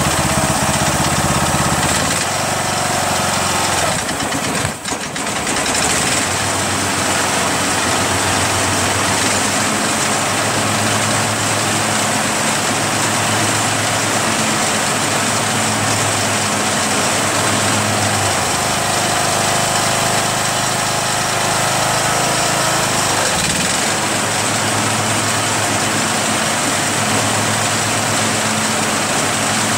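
Lawn tractor's 21 hp Briggs & Stratton Intek engine running steadily, with a brief dip in its speed about five seconds in and small changes in pitch later on.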